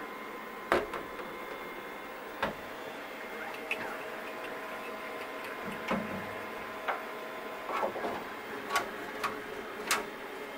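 Scattered clicks and knocks of a plastic filament spool being handled and slid onto a 3D printer's metal spool holder, over a steady machine hum with faint steady tones.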